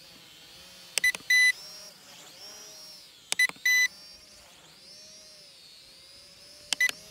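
Holy Stone HS110D quadcopter's motors whining faintly overhead, the pitch wavering as it manoeuvres. Its handheld controller beeps loudly three times, two quick beeps then a longer tone the first two times, as the flip function is engaged.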